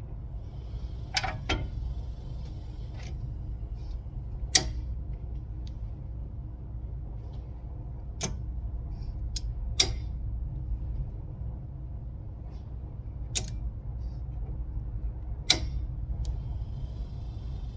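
Hand work on a brake assembly: scattered sharp clicks and knocks, about seven spread irregularly, the loudest a little after four seconds in and near ten and fifteen seconds in, over a steady low hum.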